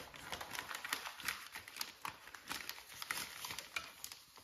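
Faint, irregular rustling and crinkling of newspaper and a cloth rag handled by hand, with small scattered clicks, dying away near the end.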